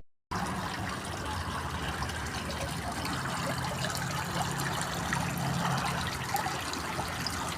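Running water, a steady trickling and splashing.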